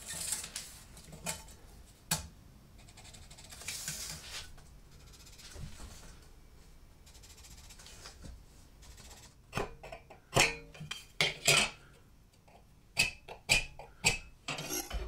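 Steel tape measure and scriber worked along a square steel tube: soft rasps of the tape blade sliding over the metal, a sharp click about two seconds in, then from about two-thirds of the way through a run of short metallic clicks and scratches as the tube is marked with the scriber.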